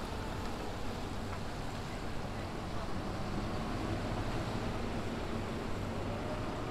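City bus diesel engine running as the bus drives off and turns, a steady low hum over outdoor traffic noise.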